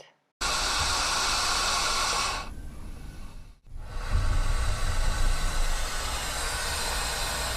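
Green anaconda hissing: two long, breathy hisses, the second starting about four seconds in with a low rumble under it.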